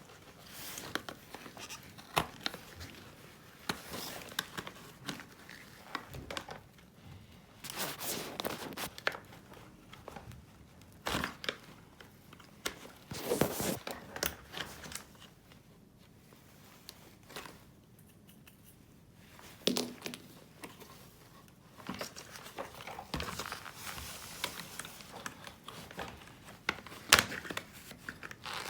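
Hands working on a disassembled vacuum cleaner: irregular rustling and crinkling with scattered sharp clicks and knocks as parts are handled, with a quieter lull in the middle.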